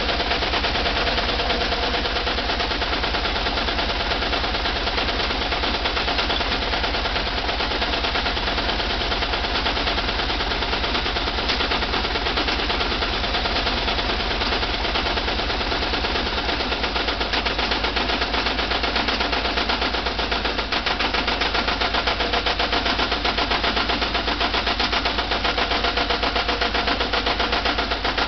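VW Type 4 two-litre air-cooled flat-four engine running steadily with a fast, even knocking: an engine knock of unknown cause, recorded for diagnosis.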